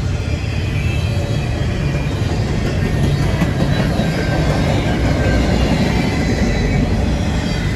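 CSX freight train rolling past close by with a steady rumble of wheels on rails.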